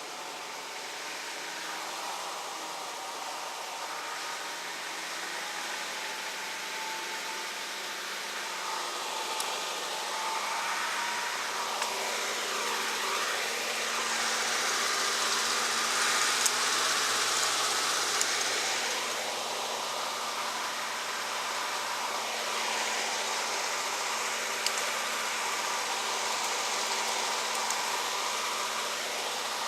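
Steady rushing noise with a faint motor hum under it, swelling louder for several seconds in the middle, with a few light clicks.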